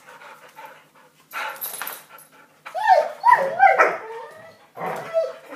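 Airedale terriers whining at a baby gate in short cries that rise and fall in pitch, starting about halfway through, after a brief scratchy noise.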